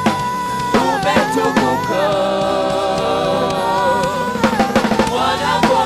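Gospel worship music: voices singing long held notes together over an instrumental backing with drums.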